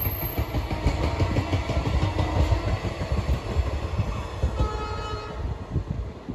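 Passenger train coaches rolling past on the rails: a steady low rumble with irregular clacks of the wheels over rail joints. A brief high tone sounds about five seconds in, and the rumble fades at the very end as the train draws away.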